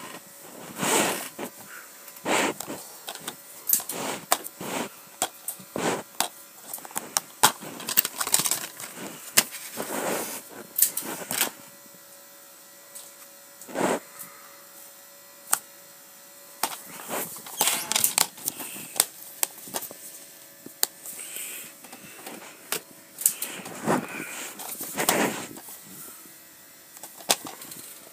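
Plastic DVD cases being handled and opened: irregular clicks, knocks and short scraping rustles as the cases are picked up, flipped and knocked against each other.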